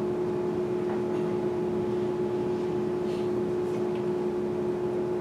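Steady room hum: a constant drone holding a few fixed pitches that never change, over a low even noise.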